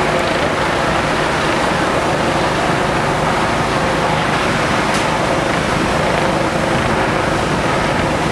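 Steady, unbroken noise of fire apparatus diesel engines running at a fire scene, pumping water to an aerial ladder's master stream.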